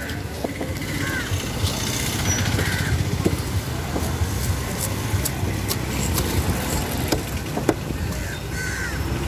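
Steady low rumble of road traffic, with scattered sharp knocks and a few short crow calls near the start and again near the end.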